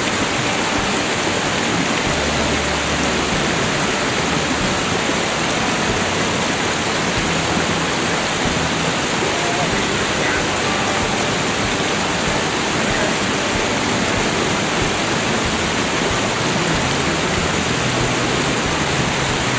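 Steady rush of flowing river water, close and loud, with no pitch and no breaks.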